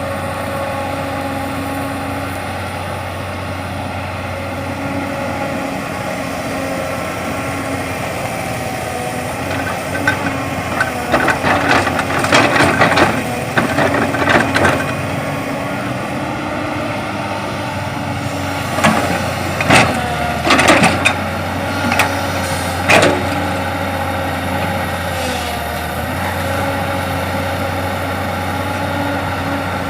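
Heavy diesel engines of an excavator and dump truck running steadily. Two bursts of loud knocks and rattles, about ten seconds in and again near twenty seconds, fit earth and rock dropping from the bucket into the truck's steel bed.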